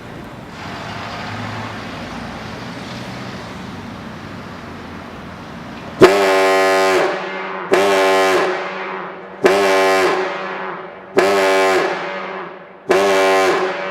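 Gamewell diaphone compressed-air fire horn: a steady rushing noise for about six seconds, then five deep, loud blasts in a row, each starting sharply and fading after about a second. The count of blasts is a coded alarm signal, here code 5, once counted by firefighters to know where a call was.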